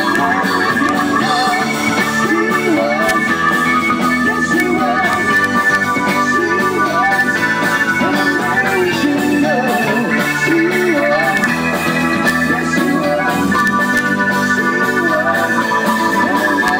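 Live rock band music playing continuously: steady held chords with a bending, wavering melody line over them.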